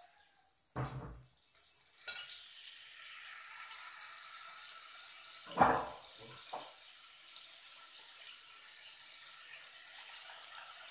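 Margarine sizzling as it melts in hot oil in a frying pan, a steady hiss that starts about two seconds in. A thump about halfway through is louder than the sizzle.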